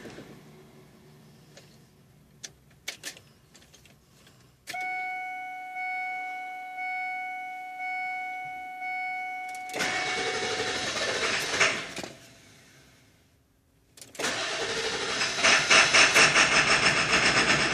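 Ford 7.3L Power Stroke diesel: the running engine stops, a dash warning chime beeps about once a second, then the starter cranks the engine in two long attempts, the second louder with a fast even chug, without it catching: the hot hard-start problem.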